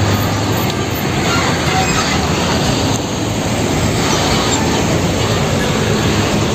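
UD Quester fuel tanker truck driving past, its diesel engine rumbling under steady tyre and road noise.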